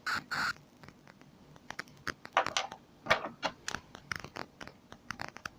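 Close handling noise: scattered small clicks, taps and brief scratchy rustles as hands fiddle with small objects.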